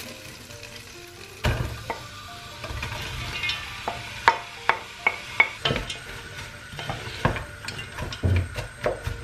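Butter sizzling in a metal pot as sliced onions are scraped off a plate with a wooden spoon, dropped in and stirred. There is a thump about one and a half seconds in, followed by many short taps and scrapes of the spoon against the plate and pot.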